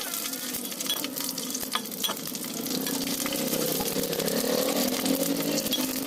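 Food frying in a pan, a steady sizzle with many small crackles, with a faint wavering hum underneath.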